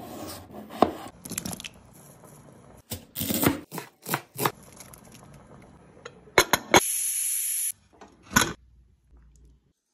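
A kitchen knife cutting through a raw potato, then chopping coriander leaves on a cutting board: a run of sharp crunchy knocks. Later comes a short steady hiss that stops abruptly, then a single clack near the end as the aluminium pressure cooker's lid is handled.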